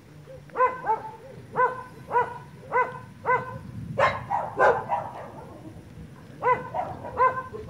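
Dog barking in a series of short, high yaps, about two a second. Two harsher barks come about four seconds in, then a pause, then more yaps near the end.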